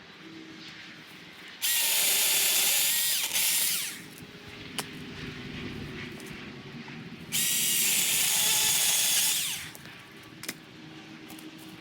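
Battery-powered Milwaukee Fuel chainsaw cutting firewood. The motor whines at full speed in two bursts of about two seconds each, with quieter pauses between.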